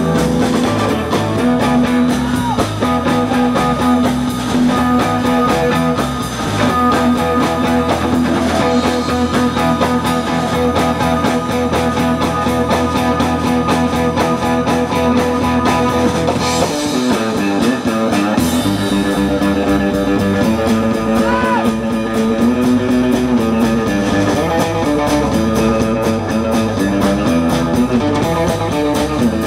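Live rock band playing an instrumental passage with electric guitar to the fore over bass.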